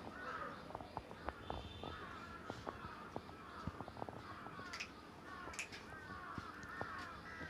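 Faint, repeated bird calls in the background, with scattered small clicks.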